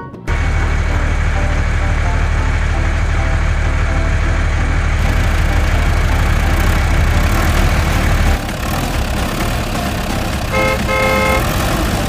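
A vehicle engine running with a steady low rumble that changes about two-thirds of the way through, then a horn toots twice near the end.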